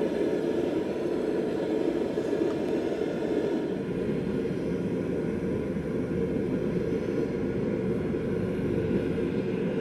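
A steady, low roaring noise that holds an even level throughout.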